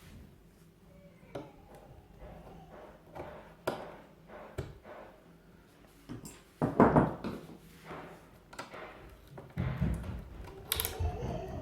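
Hand-tool work on an old steel rim lock on a wooden door: scattered knocks, thunks and metallic clicks as it is pried loose, with a loud burst of knocking about seven seconds in and a scraping stretch with a sharp click near the end.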